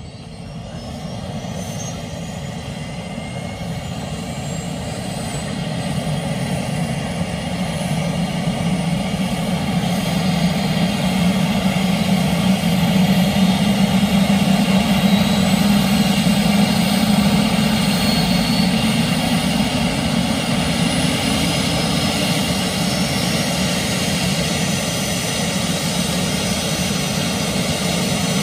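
Airbus H145 helicopter starting up: the turbine whine climbs in pitch as the engines spool up, and the sound grows louder over the first dozen seconds, then holds steady.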